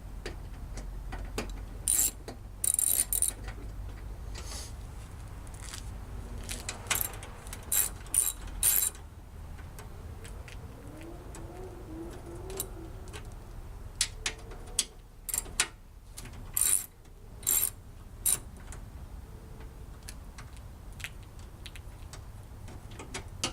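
Socket ratchet clicking in several short spells of rapid ticks as 10 mm headlight mounting bolts are loosened.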